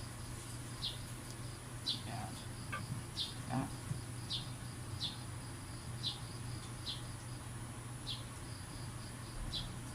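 A young pigeon peeping while it is held for dosing: short, high-pitched chirps that fall in pitch, roughly one a second, over a steady low hum.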